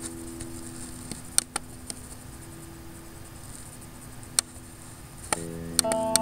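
Computer mouse clicks, several sharp single clicks, over soft background guitar music whose held chord fades and is joined by new notes near the end.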